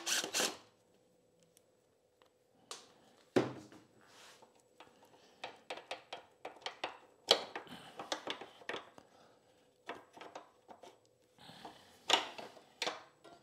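Scattered clicks, taps and knocks of tools and small metal parts as a motorcycle's brake pedal is being unbolted, with one firmer knock about three and a half seconds in.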